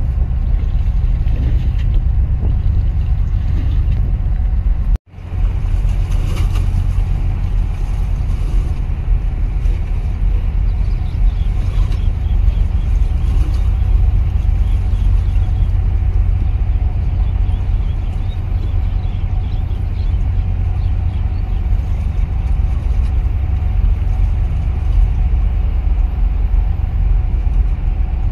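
Steady low rumble of a motorboat's engine running underway, mixed with wind on the microphone. The sound cuts out for an instant about five seconds in.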